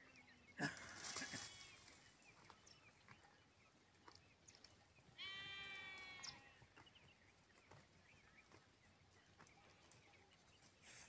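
Two bleats from livestock over a faint background with small bird chirps: a sudden, loud cry about half a second in, then a steady bleat lasting about a second, about five seconds in.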